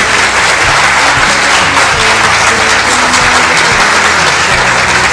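Music: an instrumental stretch of a song, with a moving bass line and guitar under a dense, bright wash of sound.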